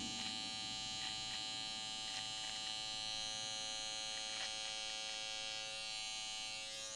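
Andis Slimline Pro cordless T-blade trimmer running with a steady buzz as its blade cuts along the mustache at the lip line, with a few brief faint crackles.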